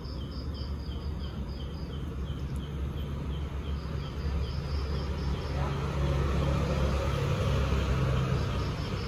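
Night ambience: a steady low rumble of distant traffic, growing a little louder about halfway through, under insects chirping rhythmically at about four chirps a second.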